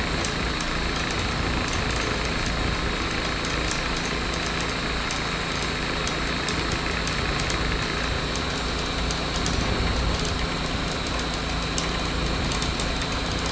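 Hacker A60-16L brushless motor driving a six-blade homemade propeller at a steady speed, a steady whir of motor and prop wash. The prop is weighted out of balance with a bolt, washer and nut on one blade to shake the test mount.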